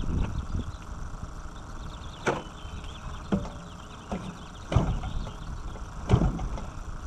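Several sharp thumps, irregularly spaced about a second or so apart, as the propeller of a giant-scale model plane's gas engine is flipped by hand. The engine does not catch. There is a low rumble of wind on the microphone underneath.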